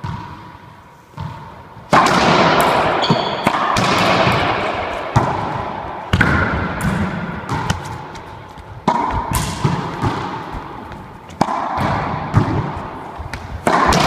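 Racquetball bounced on the floor before a serve, then a rally: loud cracks of the ball off racquets and the court walls about every one to two seconds, each ringing on in the enclosed court's echo.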